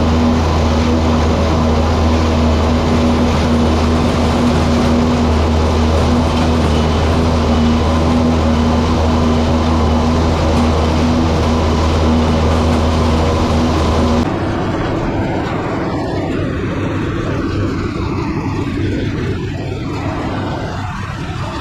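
Steady mechanical running with a strong low hum and a steady higher tone, as of engines or motors under way; about fourteen seconds in it cuts abruptly to a quieter, rougher running sound.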